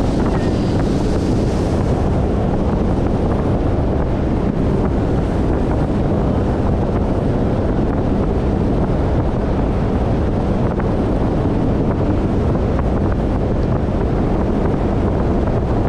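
Speedboat running flat out: steady wind buffeting the microphone over the outboard motor's hum and the rush of water off the hull.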